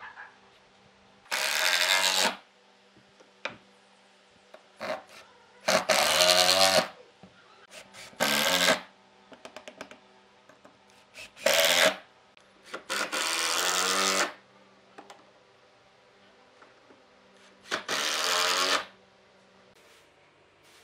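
Cordless impact driver driving screws into wooden blocks in six short runs, each about half a second to a second and a half long, with small clicks and knocks of handling between them.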